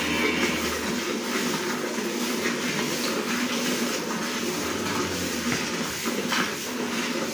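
Cow being milked by hand: squirts of milk hissing into a metal bucket already partly full of milk, over a steady low hum.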